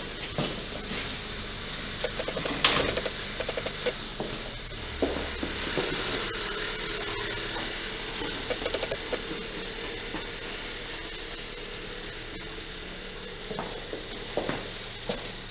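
Engine oil trickling into a metal drain pan, with a steady hiss and scattered metallic clinks and knocks.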